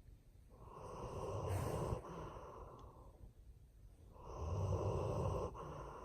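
Old German Shepherd dog snoring in its sleep: two long snores about three and a half seconds apart, each cutting off suddenly and trailing into a softer breath.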